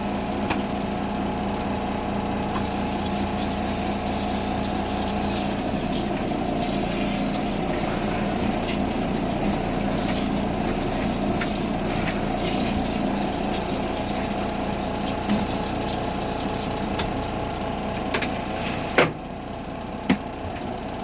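Water running into the tub of a twin-tub portable washing machine for rinsing, over the steady hum of its spin-dryer motor. The water starts about two seconds in and stops a few seconds before the end, followed by two sharp knocks.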